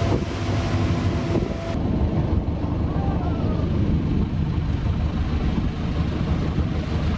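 Steady low rumble of a boat's motor mixed with wind on the microphone.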